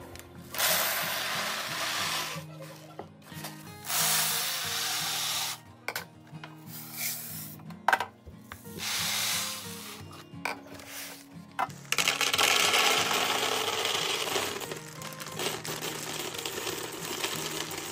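Dry food being poured into storage bottles, in four long pours, the last one longest, with a sharp clink about halfway through.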